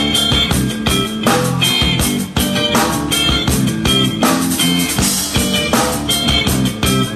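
Live rock band playing loudly: guitar over a drum kit with a steady, driving beat.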